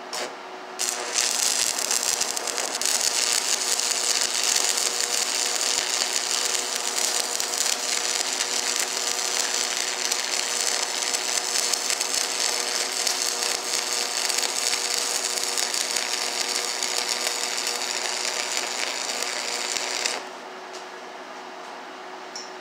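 Stick welding arc crackling and sizzling steadily as a bead is run. A brief strike comes just after the start, then the arc catches about a second in and burns without a break until it cuts off abruptly near the end.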